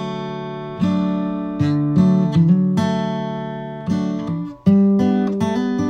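Background music of a strummed acoustic guitar: chords are struck about once a second, and each rings out and fades before the next.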